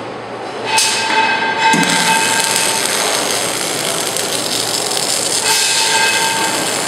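Welding arc of an automatic prop nut cup handle welding machine, starting about a second in and then running steadily, hissing and crackling under a faint steady whine as the cup handle is welded to the prop nut.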